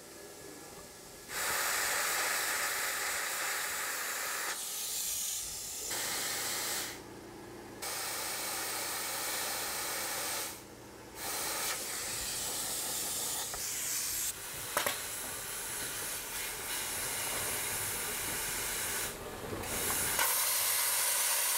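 Air plasma cutter cutting the steel ribs of a boat hull: a hard, steady hiss in several long bursts of a few seconds each, with short breaks between them.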